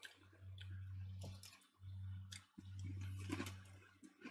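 Faint, scattered crunches of a person chewing a crunchy bacon-flavoured cereal snack, over a low electrical hum that cuts out now and then.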